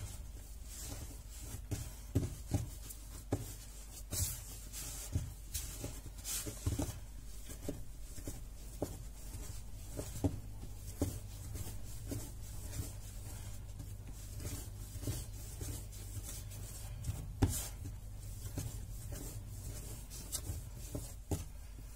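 Semolina bread dough being kneaded by hand on a floured tiled worktop: soft, irregular thuds and rubbing as the dough is pushed, folded and pressed down.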